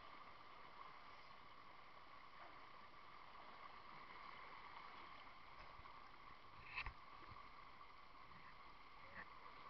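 Faint, steady rush of river water over a small rocky cascade, with one brief knock about seven seconds in.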